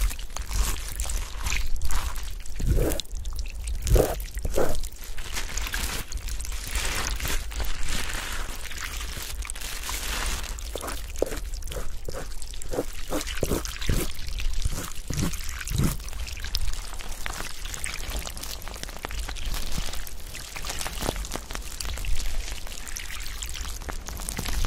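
Water pouring and trickling: a steady splashing hiss with short plops and drips scattered through it.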